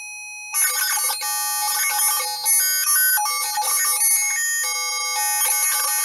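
Buzzy electronic tones from a breadboard CMOS linear-feedback-shift-register noise generator (4006 shift register with 4070 exclusive-OR gates), set to a tap that gives a tone. For the first half second there are only faint thin tones. Then the pitch pattern jumps between different tones several times a second, as interference picked up by the circuit's clock from a nearby finger switches it between varieties of tone without any touch.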